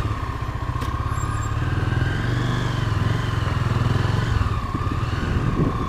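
Motorcycle engine running steadily as the bike rides slowly along, a low even putter; its lowest note eases off about four seconds in.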